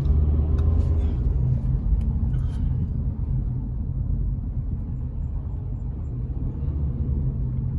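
Steady low rumble of car engine and road noise, heard from inside a car moving slowly in traffic, a little louder in the first second.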